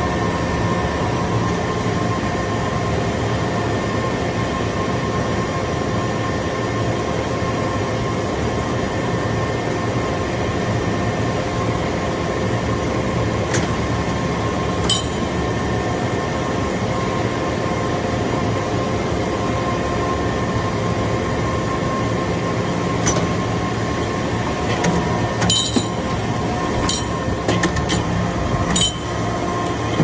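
Hydraulic power unit of a metal-chip briquetting press running, a steady hum with a whine on top. Several sharp metallic clinks come in the second half, more of them near the end.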